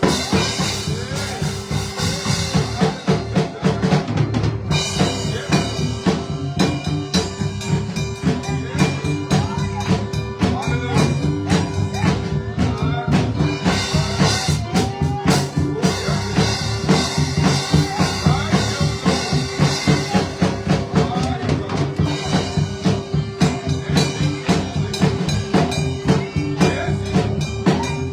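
Live gospel band playing an instrumental groove: a drum kit beating a fast, steady rhythm with snare and rimshot hits over held chords.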